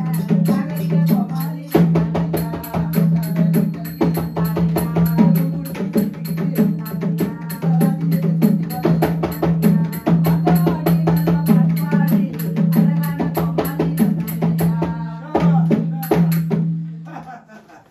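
Mridangam played in quick, dense strokes over a low steady drone, with a voice over it, as accompaniment to a Tamil leather shadow puppet play; the playing dies away near the end.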